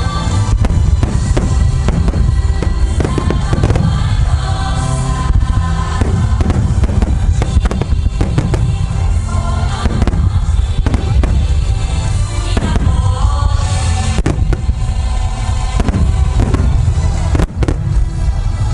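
Fireworks bursting in rapid succession, a continuous deep booming rumble broken by many sharp cracks, with music playing along at the same time.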